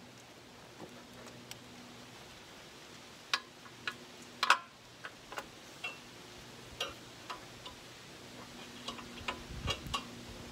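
Irregular light clicks and knocks of hydraulic hoses and their metal coupler fittings being handled and fed through against the tractor's body and valve, the loudest a sharp knock about halfway through. A faint steady low hum sits underneath.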